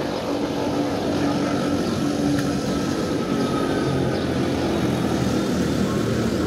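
Wengernalpbahn electric rack-railway train running steadily, a continuous motor hum over rolling noise.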